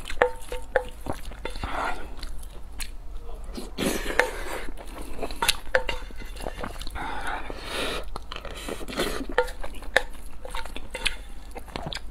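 A spoon scraping and clinking against a metal bowl as rice is stirred, several of the clinks leaving a short ringing note, with close chewing and mouth sounds of eating rice in between.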